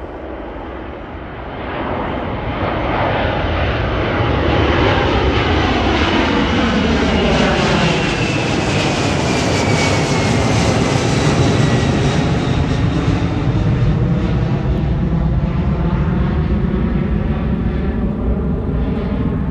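Delta twin-engine jetliner climbing out after takeoff and passing overhead. The jet engine noise builds over the first few seconds, then holds loud, with a whine that falls in pitch as the aircraft goes by.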